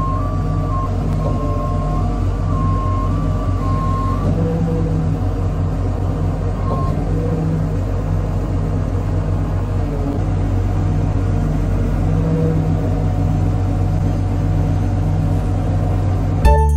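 Rough terrain crane's diesel engine running steadily, heard from inside the operator's cab as a low, even drone. Music cuts in at the very end.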